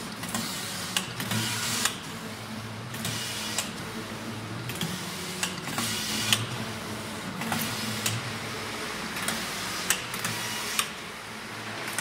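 Phanstar single-system, 52-inch semi-jacquard collar flat knitting machine running. Its carriage sweeps back and forth across the needle bed with a repeating whirring hiss every second or two and sharp clicks, over a low motor hum.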